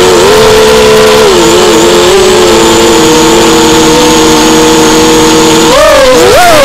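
Racing quadcopter's motors and propellers whining steadily, loud from the onboard camera; about six seconds in the pitch swings sharply up and down as the quad banks and spins.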